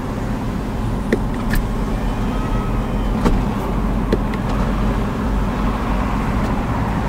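BMW 745Li's 4.4-litre V8 idling steadily, heard from inside the cabin, with a few light clicks about one, one and a half, three and four seconds in.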